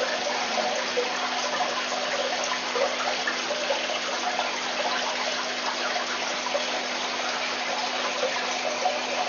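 Aquarium water splashing and bubbling steadily, with a steady low hum underneath.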